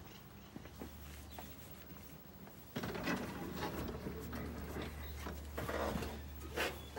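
Scattered light clicks and taps, then from about three seconds in a louder, irregular rustling and shuffling with a few knocks, the sound of someone moving around and handling things close to the microphone.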